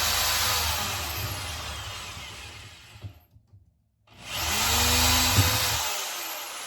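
Corded electric drill running while boring a hole in a cabinet door for a knob. The motor dies away, stops for about a second, then spins up again and slowly trails off.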